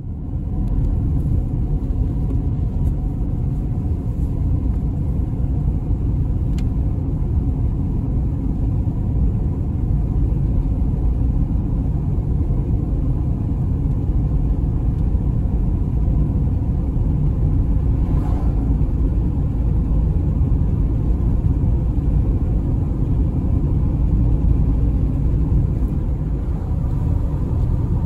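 Car driving on a paved road, heard from inside the cabin: a steady low rumble of tyres and engine that sets in suddenly at the start.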